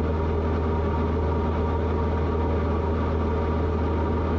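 Light piston airplane's engine and propeller heard in the cockpit as a steady, unchanging drone at cruise power.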